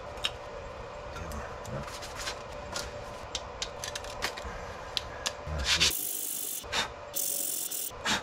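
Brake pads and their metal hardware being handled and worked with a small tool, with light clicks and scraping throughout. Two short bursts of hiss come about six and seven seconds in.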